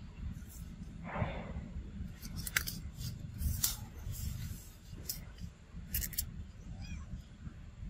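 A macaque biting and chewing leaves and stems: irregular crisp crunches and snaps, with a short rustle about a second in, over a steady low rumble.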